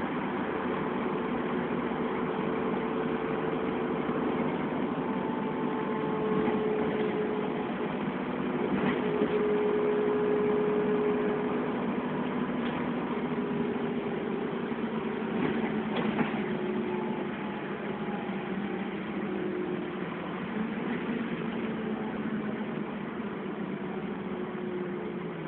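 Dennis Trident double-decker bus driving along, heard from inside the passenger saloon. The engine and drivetrain run steadily, with tones that rise and fall as it pulls and changes speed, and there are a few short knocks and rattles from the body.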